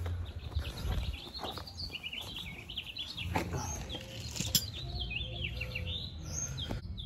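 Small songbirds chirping over and over in a tree, a rapid run of short falling chirps. Under them are a low rumble and a couple of sharp knocks on the phone's microphone as it is moved about.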